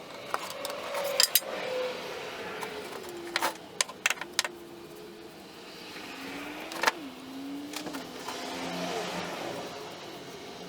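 A small power tool's motor running, its pitch sagging and rising as it is loaded, with sharp metallic clicks and clinks throughout.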